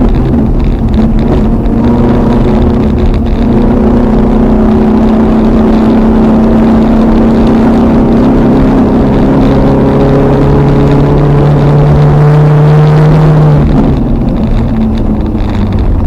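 Toyota RAV4's 3S-GE four-cylinder engine heard from inside the cabin, running hard under load with its note climbing slowly and steadily, then dropping abruptly about fourteen seconds in. A heavy low rumble runs underneath.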